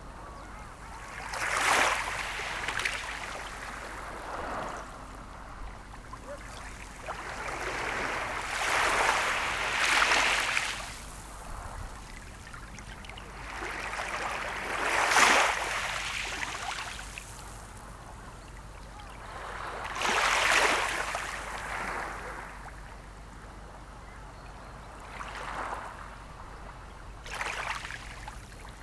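Sea waves breaking and washing in, a swell of hissing surf about every five seconds that rises and dies away, the loudest about halfway through.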